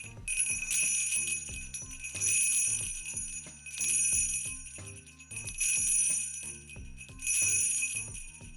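Sleigh bells shaken in five even jingling bursts, about one every second and a half, each ringing briefly before the next shake. Soft background music with a steady beat runs underneath.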